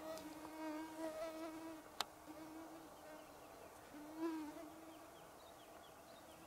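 A mosquito whining close to the microphone, a thin buzzing tone that fades in and out as it flies around. There is a single sharp click about two seconds in.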